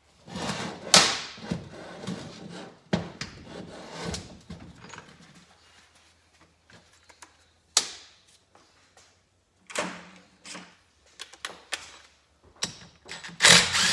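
Clunks, knocks and clicks of a motorcycle engine and hand tools being handled on a metal workbench, busy for the first few seconds, then sparse, with a louder scraping rattle near the end.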